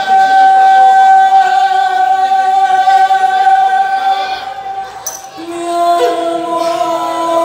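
Live band performing a ballad: a female singer with keyboard and guitar accompaniment. A long note is held for about four seconds, the sound dips briefly, and a new lower held note comes in about five and a half seconds in.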